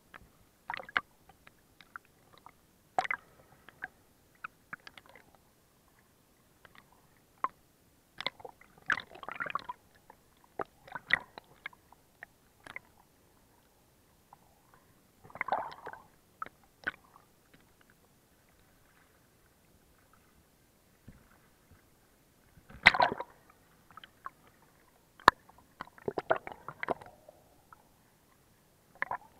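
Sea water sloshing and gurgling against a camera held at and just under the surface while snorkeling. It comes in irregular bursts with sharp clicks and quiet gaps between them, and the loudest splash comes about three-quarters of the way through.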